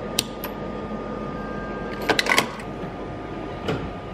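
Coffee vending machine humming steadily while a coin goes into its slot with a sharp click, followed about two seconds in by a quick clatter of clicks from the machine, and one more click near the end.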